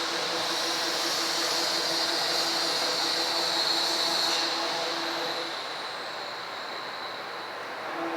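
CNC milling machine running, with a steady mechanical noise and a high whine. About five seconds in it gets quieter and the whine fades away.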